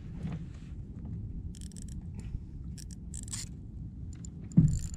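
Handling noise aboard a kayak as a freshly landed fish and jig are dealt with: short scratchy scrapes and rustles in the middle, then a single loud knock near the end, over a steady low rumble.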